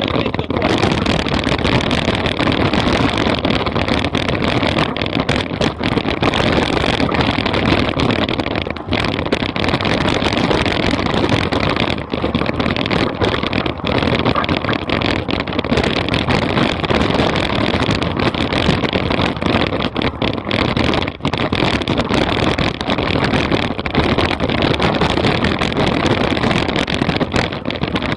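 Loud, continuous noise of a mountain bike riding a rough dirt trail: tyres and bike rattling over the ground, with wind buffeting the microphone. It dips briefly now and then.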